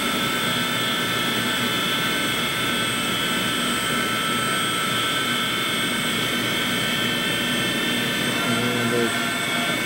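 Walter Helitronic CNC tool and cutter grinder running a warm-up program: a steady mechanical whine made of several high tones over a hum, from the spindle turning at speed while the axes move.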